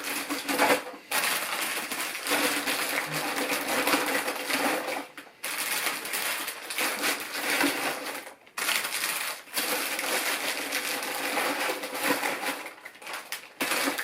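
Plastic bags of LEGO pieces crinkling and rustling as they are handled, with brief pauses about five and about eight and a half seconds in.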